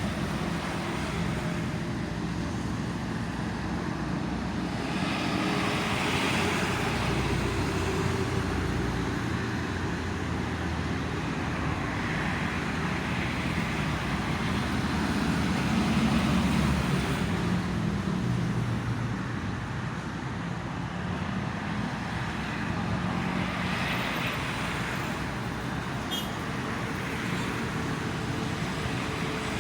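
Steady road traffic on a toll road: a continuous rush of tyres and engines with a low engine hum, swelling several times as heavier vehicles pass, loudest about halfway through.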